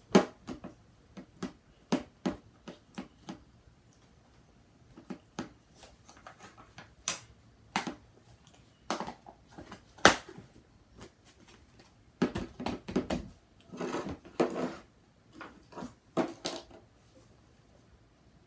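Irregular taps, clicks and knocks of small objects being handled and set down, with a denser stretch of scraping and rustling about two-thirds of the way in.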